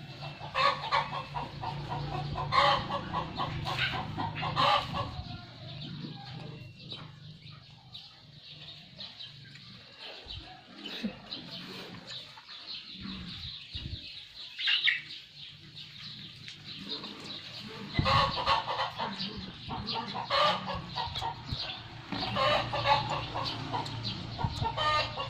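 Chickens clucking in rapid bursts for the first five seconds and again in the last seven, quieter in between, over a steady low hum.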